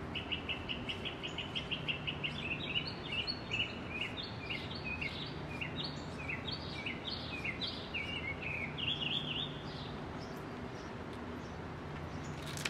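A bird singing: a fast run of chirps at about eight a second, then a string of short notes that slide downward, stopping about ten seconds in. A steady low hum runs underneath.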